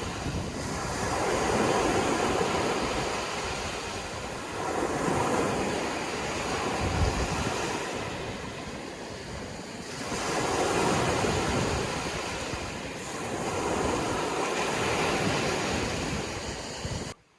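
Sea waves breaking and washing up the shore, swelling and falling back about every four to five seconds. The sound cuts off abruptly just before the end.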